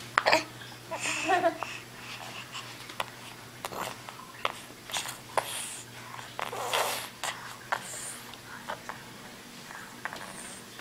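A baby making strange noises while eating apple sauce: a short pitched squeak about a second in, then a series of short breathy puffs and snorts, with a sharp click near the start.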